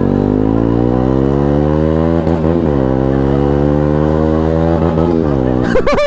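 Benelli 302S's 300 cc parallel-twin engine accelerating under way, its pitch climbing steadily through a gear, dropping at an upshift a little over two seconds in and climbing again, with another shift about five seconds in.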